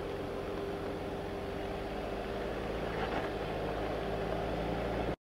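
Mercedes-Benz G-Class SUV running at low speed as it crawls over rocks, a steady engine and drivetrain rumble. The sound cuts off suddenly near the end.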